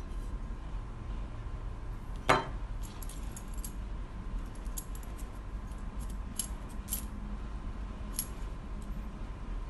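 Small metal hand-brake repair kit parts (plated lever plates, pins and springs) clinking as they are picked up and handled. One sharp clink comes about two seconds in, followed by a scatter of lighter ticks.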